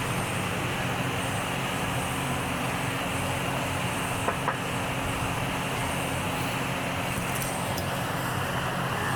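Steady, even machine hum with a low droning tone, like a shop fan or other running equipment, with two light clicks about four and a half seconds in.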